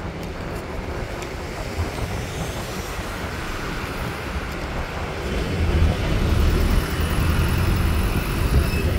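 Open-top tour bus driving through city traffic: a steady traffic and engine rumble that grows louder about halfway through.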